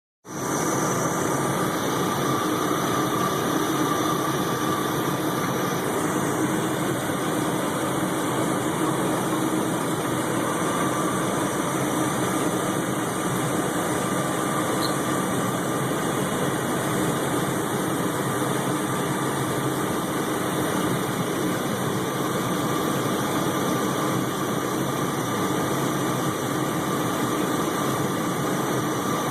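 Car engine idling steadily with a steady whine over the running noise, the noise put down to the alternator; a faint high whistle stops about six seconds in.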